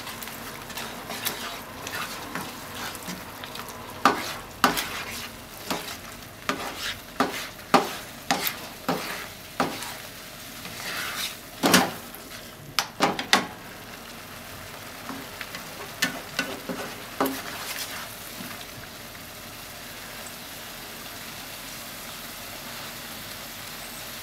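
Ham, tofu and egg sizzling in a frying pan while a spatula stirs and scrapes it. A run of sharp knocks and scrapes of the spatula against the pan comes through the middle, thins to a few taps, and only the steady sizzle remains near the end.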